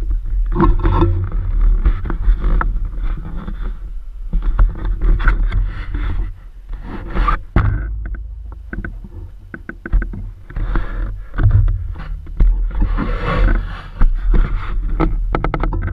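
Handling noise on a small camera's microphone as the drone is picked up and carried: irregular scraping, rubbing and knocks over a steady low wind rumble.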